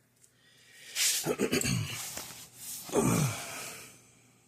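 A man sighing twice, each sigh breathy and falling in pitch.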